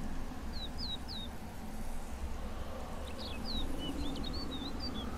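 A small bird chirping: three short falling chirps about half a second in, then a quicker, more varied run of chirps from about three seconds in, over a steady low rumble.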